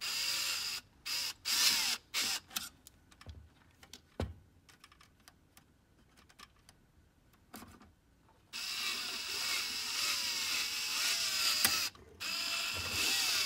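Electric screwdriver spinning a nut driver on a small screw that won't catch its hole in a slide projector's solenoid: several short spurts in the first few seconds, then two longer runs near the end, the motor's whine wavering in pitch.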